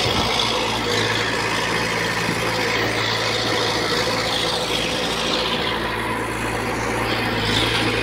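Diesel engine of a small D20P crawler bulldozer running steadily under load while pushing soil, a continuous even hum.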